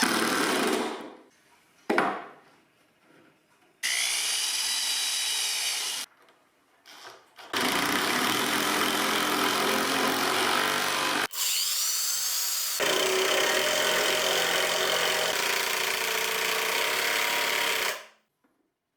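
Power drill running in several runs of a few seconds each with short stops between, its whine rising as it spins up at the start of some runs, while fastening the caster mounting hardware into the plywood base.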